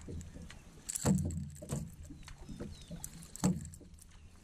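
Water sloshing and knocking around a small fishing boat, with two louder splashes or knocks, one about a second in and another at about three and a half seconds, and scattered light clicks between them.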